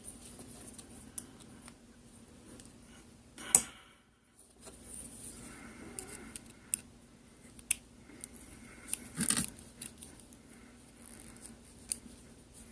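Small metal clicks and scrapes of a tool working at the stiff retaining clip on a Sargent rim cylinder lock, with the sharpest click about three and a half seconds in and a few more scattered through.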